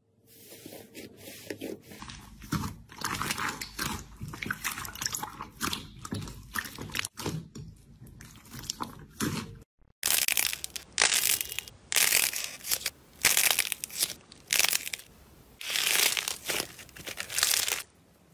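Slime crackling and crunching as fingers press it: a steady run of small crackles at first, then, about ten seconds in, about seven louder separate crunches as black coated slime balls with a cracking shell are squeezed.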